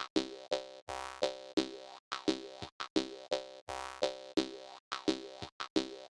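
Jaw harp music: a quick, even rhythm of twanging plucks over a steady drone, about three plucks a second.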